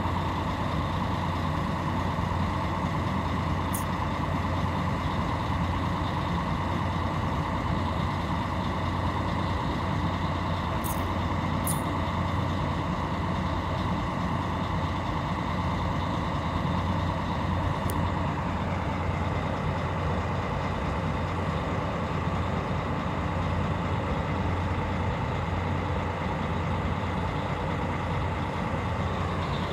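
Large diesel coach engines idling with a steady low drone, with a few brief high hisses.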